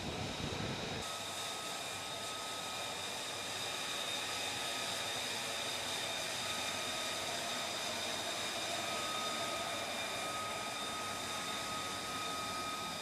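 F-35B fighter jet's turbofan engine running: a steady rushing noise with a high, even whine that holds its pitch. The sound changes abruptly about a second in.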